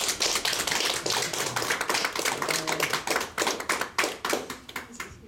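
Small group of people applauding with a dense patter of hand claps that thins out and stops near the end.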